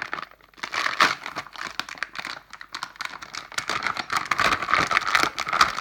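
Metallised anti-static bag crinkling and crackling as it is handled and opened, a dense run of sharp crinkles that picks up about half a second in.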